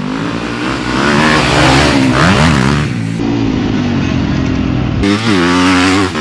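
Motocross bike engine revving hard as it is ridden, the throttle opening and closing so the pitch rises and falls, with a sharp dip and climb about two seconds in.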